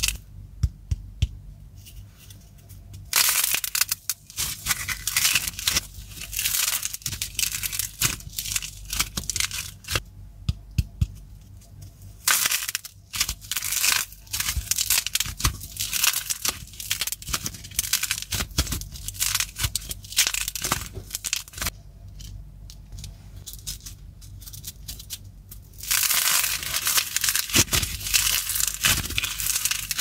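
Glitter-coated clay being squeezed and torn apart by hand: dense cracking and crunching. It comes in loud spells of a few seconds, with quieter crackling between them.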